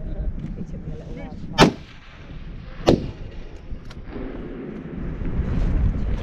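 Two rifle shots at a precision rifle match, the first the louder, just over a second apart, each a sharp crack with a short ring after it. A low rumble builds in the second half.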